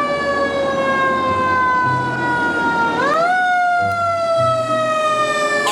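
Toy fire truck's electronic siren wailing: a tone that slowly falls, sweeps up again about three seconds in, then slowly falls again, with a low pulsing underneath.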